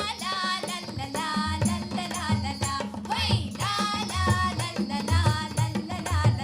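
Background music: a voice singing a melody over a steady beat of low drum strokes.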